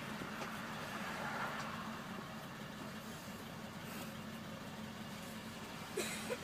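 School bus engine idling, a steady low hum heard from inside the passenger cabin. A sharp knock, with a second right after it, near the end.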